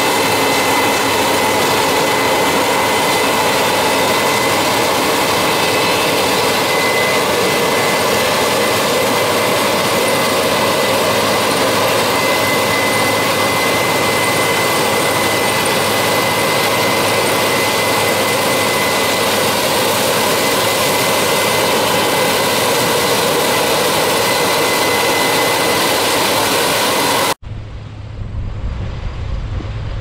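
Case IH Axial-Flow 7010 combine running steadily close by while harvesting corn, a loud even mechanical roar with a constant high whine. Near the end it cuts off abruptly to a quieter, lower engine sound.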